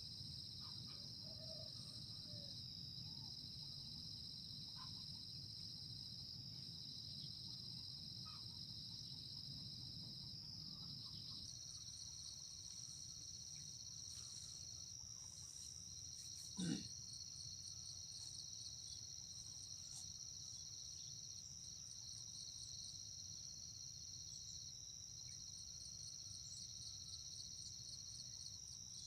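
Steady high-pitched insect chorus of the cricket kind, with a faint, rapidly pulsing trill above it. A single sharp knock sounds a little over halfway through.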